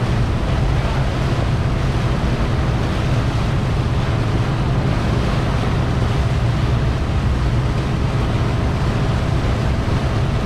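Motorboat's engine running steadily at speed, a low drone, under the wash of the boat's churning wake and wind noise on the microphone.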